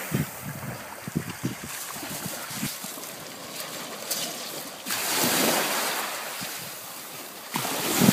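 Sea waves breaking and washing on a pebble beach, one wave surging up about five seconds in, with wind buffeting the microphone in gusts.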